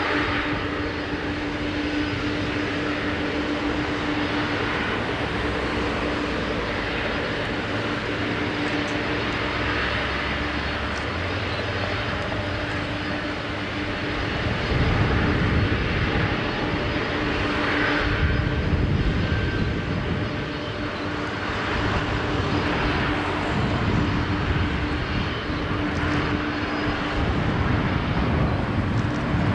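An Airbus A319-133CJ's twin IAE V2500 turbofans on landing approach: a steady engine hiss with a constant hum. About halfway through it grows into a louder low rumble as the jet closes in.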